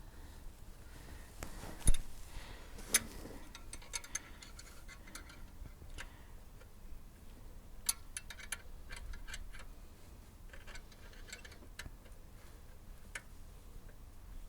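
A wrench clicking and ticking as it turns the adjusting bolt of an alternator belt tensioner clockwise to tighten the belt, with a sharp metallic knock about two seconds in and another about a second later.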